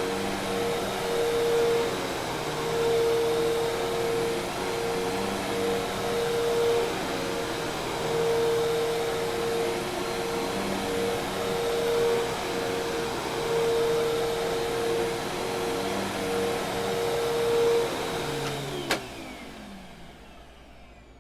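Hoover Task Vac commercial vacuum cleaner running with a steady whirring motor tone. Near the end it is switched off: the pitch slides down, there is a sharp click, and the motor winds down and fades.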